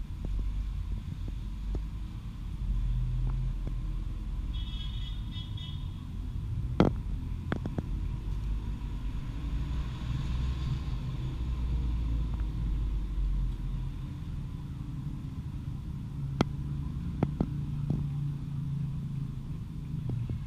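Steady low rumble of road traffic, with engine tones swelling and fading as vehicles pass, and a few sharp clicks scattered through.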